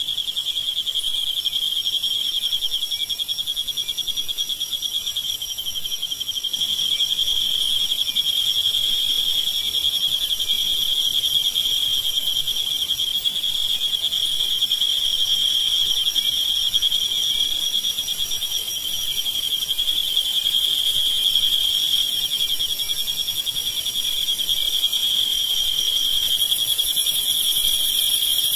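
Field crickets singing a continuous, high-pitched pulsing trill, with a fainter, higher trill from a second singer that drops out briefly about twenty seconds in.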